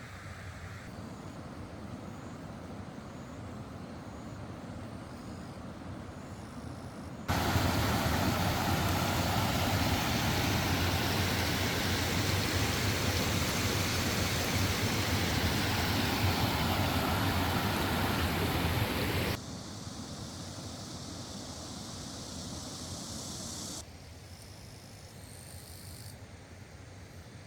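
Steady rushing of a fast-flowing stream, with the level jumping abruptly between shots: much louder for about twelve seconds in the middle, quieter before and after.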